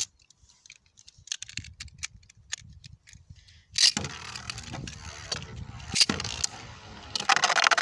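Beyblade spinning tops in a plastic stadium: a few light clicks of handling, then a sharp clack about four seconds in as a top is launched and spins with a scraping whir across the plastic floor. There is another clack around six seconds. Near the end a louder, dense rattling starts as the spinning tops clatter together.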